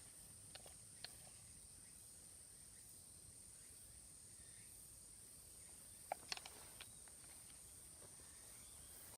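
Quiet garden ambience with a steady high-pitched insect drone and a few light clicks: two about half a second and a second in, and a short cluster of sharper clicks about six seconds in.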